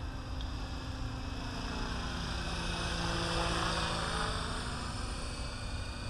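Align T-Rex 550E electric RC helicopter in flight, its rotor and motor whine getting louder as it comes in close about halfway through, then easing off as it moves away.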